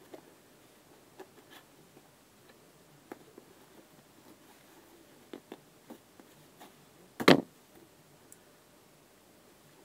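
Scattered light clicks and taps of a knife and a football boot being handled, with one loud knock about seven seconds in.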